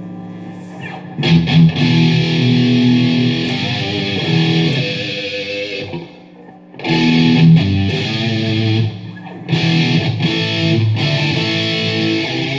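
Epiphone Les Paul Special electric guitar with P90 pickups being played: strummed chords and short riffs. The playing breaks off briefly about six seconds in, then picks up again.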